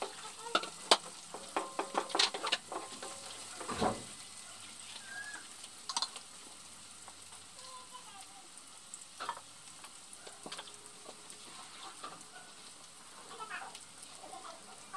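Sliced onions frying in oil in a pan, sizzling steadily with scattered crackles. A spatula scrapes and clicks against the pan during the first few seconds, and there is a dull thump about four seconds in.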